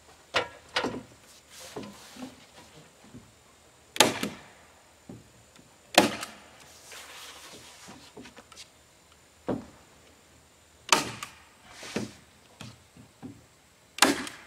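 Hammer blows nailing roofing onto a wooden coop roof: single sharp knocks spaced irregularly a second or two apart, some closely paired, each with a short ring.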